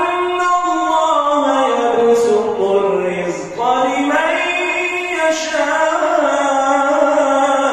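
A man's voice reciting the Quran in the melodic, chanted style of prayer recitation, holding long drawn-out notes. One long phrase falls in pitch, breaks off briefly about three and a half seconds in, and a new phrase rises.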